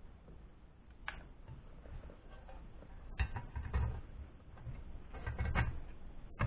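Small metal parts of an auxiliary cooling fan motor clicking and knocking as they are handled and worked into place during reassembly: a single click about a second in, then a cluster of taps and knocks in the second half.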